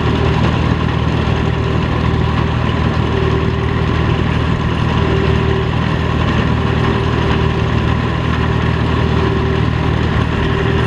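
Allis-Chalmers 66 combine running while threshing oats: a steady engine drone under the even clatter of its reel and threshing works. A short whine comes and goes every second or two.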